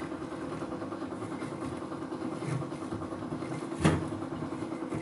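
Steady hum of a small motor running, with a single click a little under four seconds in.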